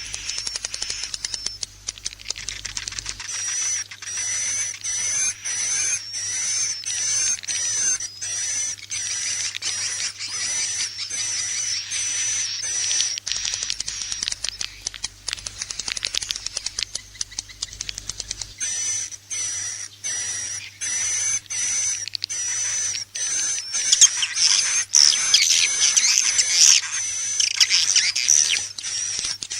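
Swiftlet calling recording of the kind played to lure edible-nest swiftlets into a nest house: dense, rapid chattering clicks with high, short chirps repeated over and over, growing busier and louder about three-quarters of the way through.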